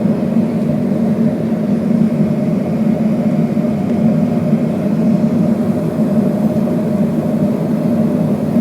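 Boeing 757-200 engines running, heard inside the cabin as a steady low hum with a faint steady tone on top.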